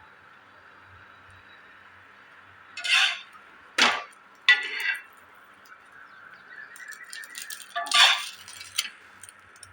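Metal utensil clinking and scraping against a dosa tawa as French toast is turned in the pan, in four sharp clatters, the last near the end, over a faint steady hiss.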